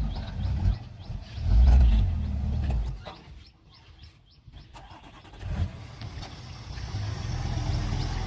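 An earthmoving vehicle's engine runs, loudest about two seconds in, fades almost away for a couple of seconds, then builds back up to a steady rumble. Birds chirp faintly in the background.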